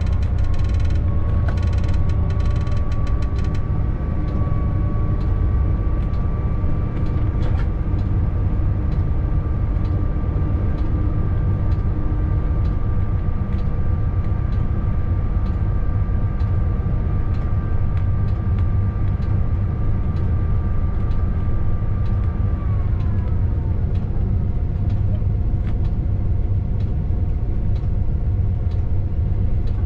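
Locomotive running light, heard from inside its cab: a steady low rumble with a high whine that holds level and then drops in pitch about three quarters of the way through.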